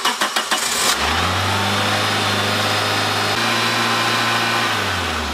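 A 2005 Toyota Corolla XRS's 2ZZ-GE four-cylinder engine cranks briefly, catches about a second in, and then runs at a steady idle. It is being started on a freshly filled cooling system so it can warm up, open the thermostat and let the air be bled from the coolant.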